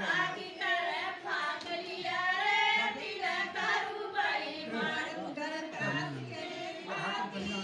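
Women's voices singing a song, several voices together, in long held phrases that waver in pitch.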